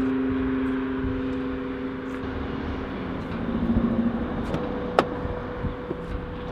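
Steady outdoor background noise with a held low music note fading out over the first few seconds. About five seconds in comes a sharp click as a car door's latch opens, followed by a few small ticks.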